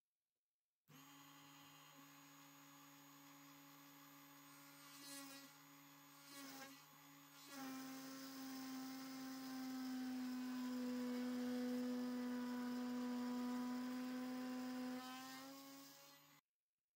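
Proxxon rotary drill in a drill stand running with a steady high whine while its bit bores into wood. From about halfway through it gets louder and slightly lower in pitch as the bit takes load, rising again just before it stops.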